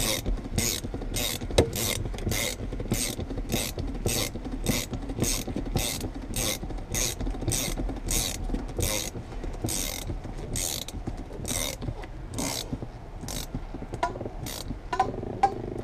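Ratchet wrench cranking a windshield cut-out line winder mounted on a suction cup, the ratchet clicking about twice a second as the cutting line is wound in. The clicks space out to about one a second after about ten seconds.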